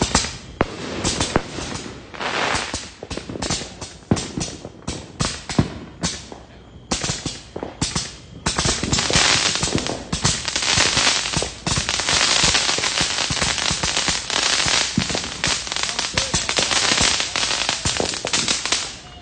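Fireworks and firecrackers going off in quick, irregular cracks and pops, thickening about halfway through into a dense, continuous crackle like a long string of firecrackers.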